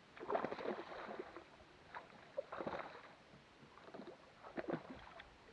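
Water lapping and slapping against the hull of a bass boat in a few irregular bursts, with small knocks among them.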